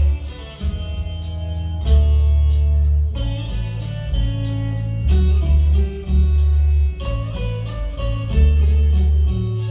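Music with plucked guitar over a heavy bass line and a regular beat, played back through a GE Audio Apex FH9 sound system.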